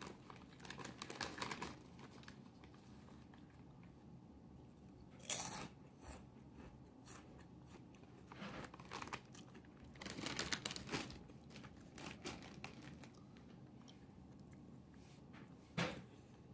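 Someone chewing and crunching a Lay's Layers Three Cheese chip: faint, irregular crunches in short clusters with quiet gaps between.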